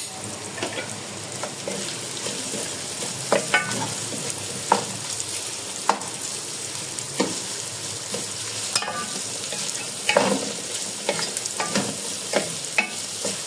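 Sliced bitter gourd and onions sizzling as they fry in a metal pot, with a wooden spoon stirring them and now and then scraping or knocking against the pot.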